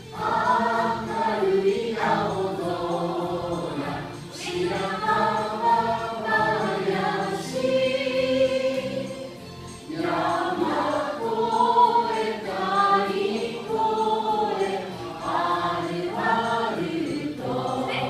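A group of voices singing a song together, in phrases with short breaks about four seconds in and again near ten seconds.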